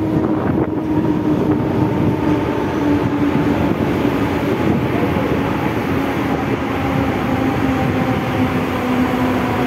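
Mumbai Central Railway EMU local train running into a station, heard from aboard the coach: loud wheel and track rumble with a steady whine that slowly falls in pitch as the train slows.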